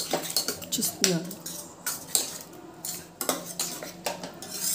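Metal ladle clinking and scraping against the inside of a pressure cooker as cooked toor dal is stirred and mashed, in quick irregular knocks.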